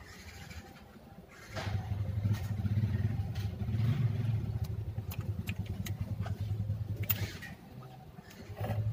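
A motor vehicle engine running with a steady low hum that comes in about a second and a half in, dips shortly before the end and returns, over a few light metallic clicks from the injection pump's timer cover being fitted by hand.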